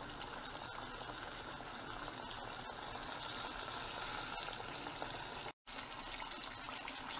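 Cornmeal-coated fish fillets deep-frying in hot oil in a pot, a steady sizzle. The sound drops out for a moment about five and a half seconds in, then the sizzle resumes.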